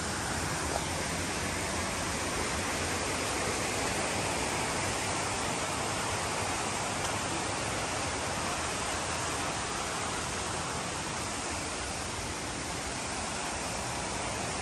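Steady rush of stream water pouring over a stone weir and along a channel.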